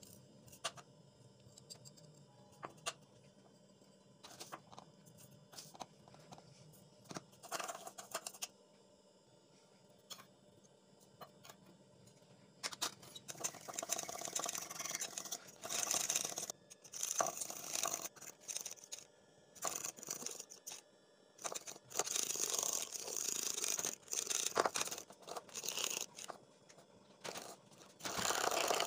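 A metal spoon whipping instant coffee in a ceramic bowl, scraping and clicking fast against the bowl. Sparse clicks at first, then from about halfway through long runs of rapid beating in repeated bursts as the mixture turns thick and creamy.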